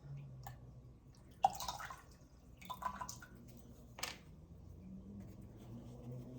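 Small handling noises from working plant pieces into place: two brief noisy rustles and a sharp click about four seconds in.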